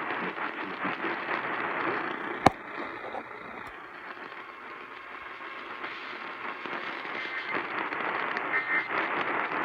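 Hiss and static from an AM radio receiver tuned to WHAS 840, with no programme audible, as the EAS test ends. A single sharp click about two and a half seconds in is the loudest sound. The hiss dips quieter for a few seconds and then returns.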